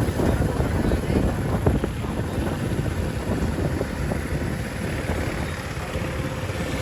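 Steady low rumble of street traffic, with wind buffeting the microphone.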